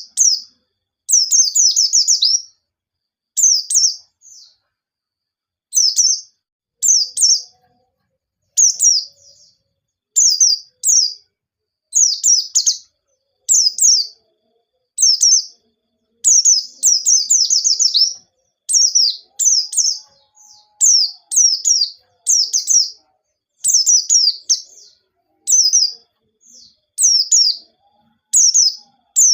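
White-eye (pleci) singing in short, high, rapid phrases of quick downward-sweeping notes, about one phrase a second with brief pauses between.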